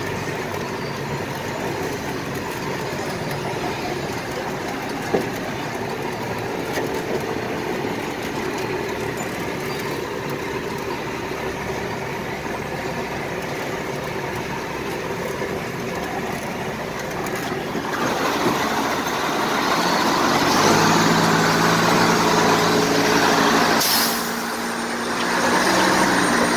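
A 1991 BMY M925A2 military 6x6 truck's diesel engine runs steadily under load, crawling over sand and gravel with a Jeep on tow, alongside the rumble of its tyres. About two-thirds of the way in, the engine note grows louder and clearer.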